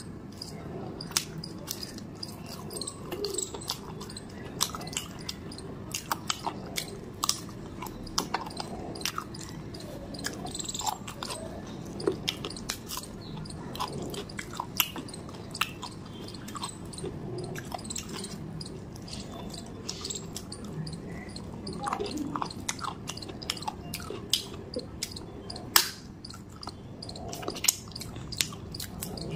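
A person chewing a mouthful of rice and spicy chicken curry, eaten by hand, with many sharp mouth clicks at irregular intervals.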